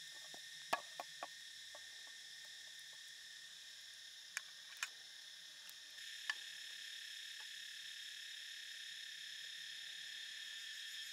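A few sharp clicks of a spatula against a metal pan of shallots and garlic frying in oil, three close together about a second in and three more around the middle, over a steady high hiss.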